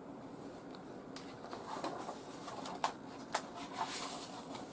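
Quiet room with a faint steady hum, and from about a second in a few light clicks and soft paper rustles as a colouring book's pages and coloured pencils are handled.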